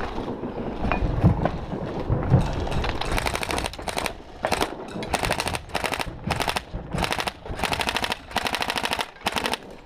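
Footsteps crunching over broken roof tiles and debris, then an electric airsoft rifle firing a dozen or so short full-auto bursts in quick succession from about three seconds in.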